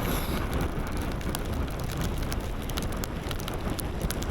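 Car driving through a snowstorm: a steady low rumble of engine and road with a wash of wind noise, and many scattered sharp ticks.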